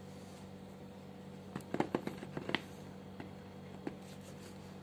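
Cardboard phone box being handled: a quick cluster of light knocks and clicks about two seconds in, then two single clicks, over a steady low hum.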